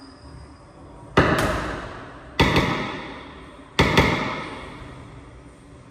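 Racquetball rally: three pairs of sharp ball cracks, about a second apart, each pair a racquet strike and a wall hit in quick succession, with a long ringing echo of the enclosed court after each.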